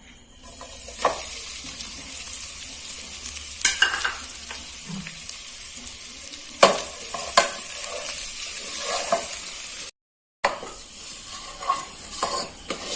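Ground coconut and cashew frying in hot ghee in a pan: a steady sizzle, with a spoon scraping and knocking against the pan a few times as it is stirred. The sizzle cuts off suddenly about ten seconds in, and only fainter stirring scrapes follow.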